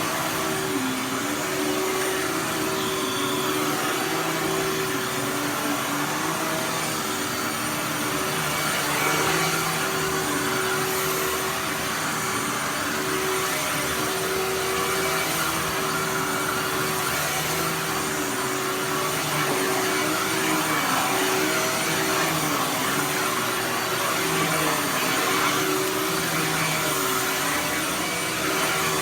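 Dirt Devil Ultra Vision Turbo upright vacuum cleaner running while vacuuming, a steady motor hum whose pitch wavers slightly over the rush of air.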